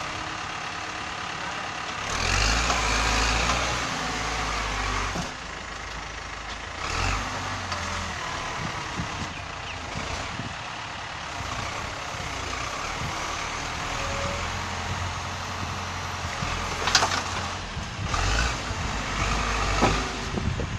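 Caterpillar 424B backhoe loader's diesel engine running, growing louder as it works harder about two seconds in, briefly again around seven seconds and once more near the end, while the backhoe arm is moved. One sharp knock sounds late on.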